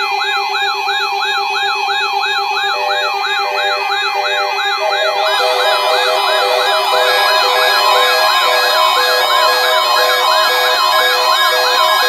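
A chorus of NOAA weather radio receivers sounding their alert alarms at once, triggered by the weekly tone alert test. Siren-like rising sweeps repeat about two times a second over steady tones, with more beeping alarms joining about three and five seconds in.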